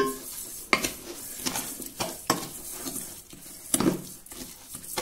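Wooden spoon stirring chopped coral tooth fungus and dry panko crumbs in a stainless steel bowl. The crumbly mix scrapes along, and the spoon knocks sharply against the metal side several times at irregular intervals.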